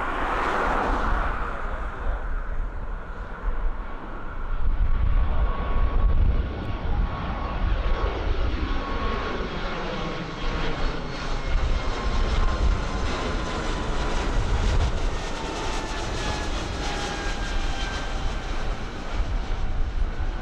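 Airbus A220 twin-jet airliner taking off and climbing overhead at full thrust. A steady engine roar with a deep rumble and a fan whine that slowly falls in pitch as the jet passes over.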